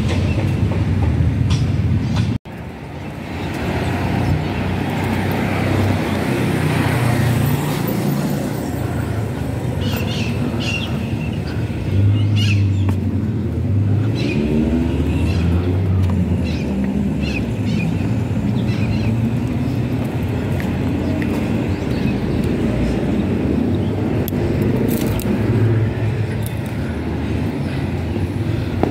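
City street traffic: car engines running and vehicles passing, a steady low rumble with a brief dropout about two seconds in.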